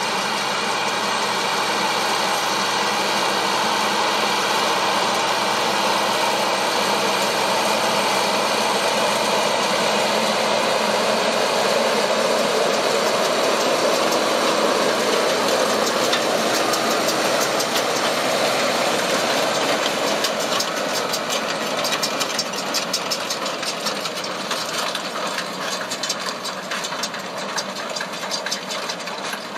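Fendt tractor's diesel engine running steadily under load while pulling a loaded forage wagon on a steep slope. A fast rattling clatter joins in about two-thirds of the way through as the engine note eases slightly.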